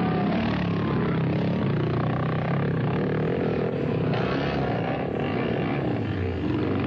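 Motocross motorcycle engines running hard and revving unevenly as several bikes race past.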